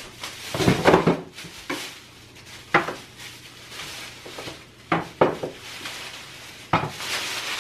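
Kitchen clatter of dishes and utensils being handled and set down on a countertop: several separate sharp knocks and clinks, the loudest about a second in, over a faint steady hum.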